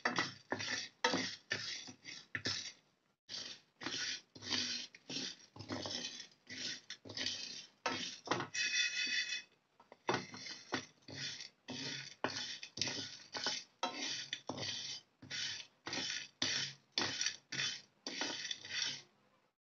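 Wooden spatula scraping through whole spices, cashews and lentils being dry-roasted in a kadai, the seeds rattling over the pan. The strokes come about three a second, with a short break about three seconds in and a brief higher squeak around nine seconds in.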